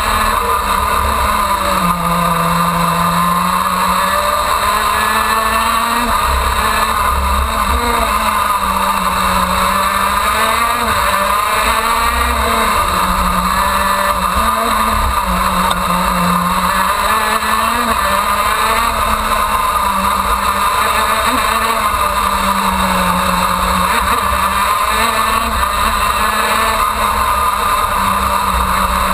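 A KZ2 shifter kart's 125cc two-stroke engine at racing speed, heard onboard. It is loud throughout, its pitch rising and falling again and again as it revs up and drops back through the corners.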